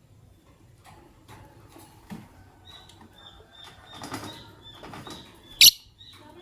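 Fischer's lovebirds chirping: a quick run of short, high chirps begins a few seconds in, and one loud, shrill call comes near the end, over scattered light clicks and rustling.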